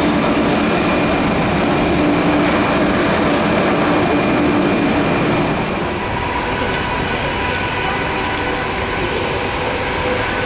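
Airbus A330-200 jet engines running loud and steady during a landing: a rushing roar with a low hum. About halfway through, the hum gives way to higher whining tones.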